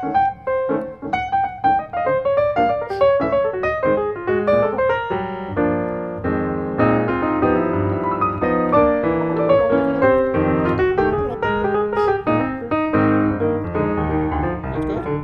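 Background piano music: a melody of single notes, turning to fuller chords with a bass line about five seconds in.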